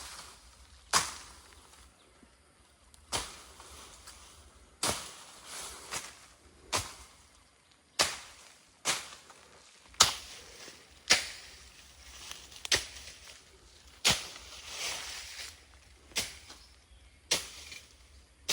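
A series of sharp cracking hits in dry undergrowth, roughly one a second and unevenly spaced, each with a brief rustle after it.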